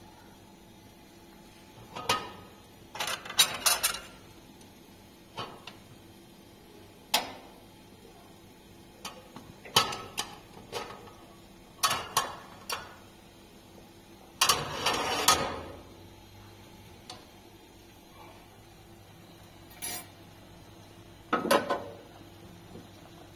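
Intermittent clinks and clatters of hard objects being handled and set down, with a longer rattling clatter about two-thirds of the way through.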